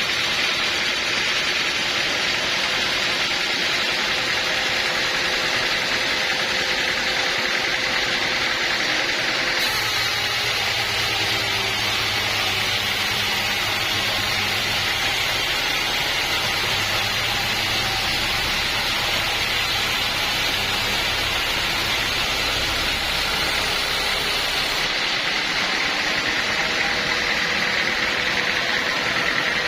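Portable sawmill running steadily with a loud mechanical noise. From about ten seconds in until about twenty-five seconds a deeper hum joins, then drops away.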